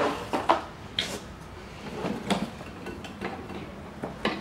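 A cardboard box and its packing insert being handled as rubber-sheathed welding cables are pulled out. A sharp knock right at the start is followed by several short scraping rustles, spaced about a second apart.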